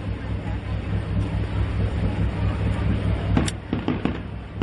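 A steady low rumble, then about three and a half seconds in an aerial firework shell bursts with a sharp bang, followed by a few scattered crackling pops.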